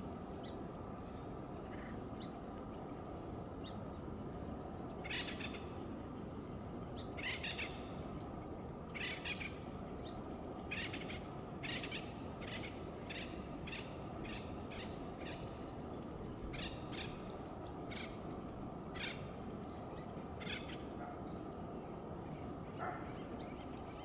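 An acorn woodpecker making a series of short, sharp clicks, irregular at first and then about two a second, over a steady low background rumble.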